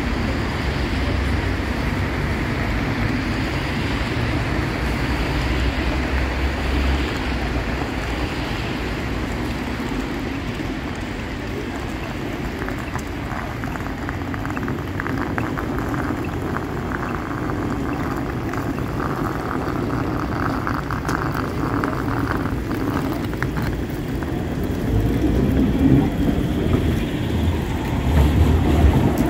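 Wet-street city traffic: a steady hiss of tyres on wet road with low engine rumble. Near the end a tram comes close and its rumble swells as it passes.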